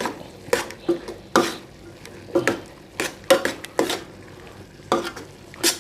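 A cooking utensil stirring vegetables in a pan, with irregular knocks and scrapes against the pan as the cornstarch-thickened sauce is worked through.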